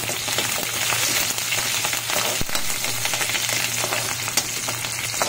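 Green chillies and curry leaves sizzling in hot oil in a kadhai for a tadka, stirred with a metal slotted spoon, with a few sharp ticks.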